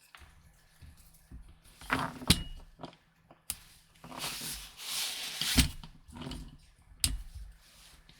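Handling noise from working on an airsoft rifle and its parts: a few sharp knocks and clicks, with a stretch of rubbing or rustling about four seconds in.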